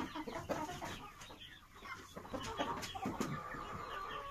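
A flock of young Borkovskaya Barvistaya chickens clucking and chirping, with many short calls overlapping.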